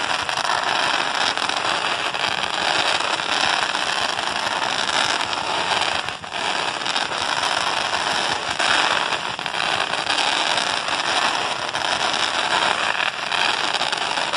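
Crackling fireworks: a dense, continuous crackle from bursts of glittering sparks, with a short dip about six seconds in.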